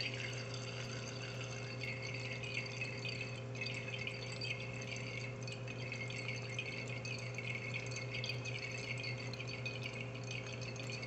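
Liquid dripping and swishing in a glass flask as titrant runs in from a buret during a titration, a continuous fine crackle over a steady low hum.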